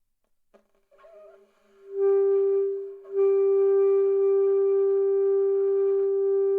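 Saxophone played by a beginner: a couple of faint, wavering attempts about a second in, then one long steady note that breaks off briefly near three seconds and is picked up again and held.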